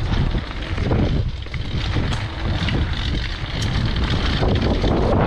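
Mountain bike rolling fast down a loose gravel and rock trail, with tyre rumble, scattered clicks and clatter from the bike, and wind buffeting the microphone. The bike's clatter is one the rider traced to a loose cassette.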